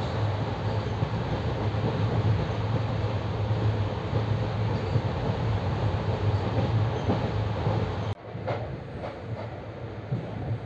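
Passenger train running on the rails: a steady rumbling noise with a strong low hum. About eight seconds in it cuts off abruptly and gives way to a quieter, thinner train noise.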